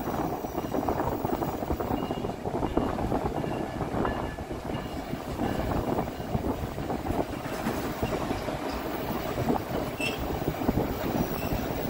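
White Pass & Yukon Route narrow-gauge passenger cars rolling along the track, wheels clattering steadily on the rails.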